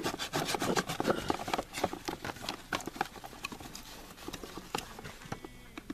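A cardboard box and its paper packing being handled and opened by hand: irregular rustling, crinkling and scraping with many small clicks and knocks, growing sparser near the end.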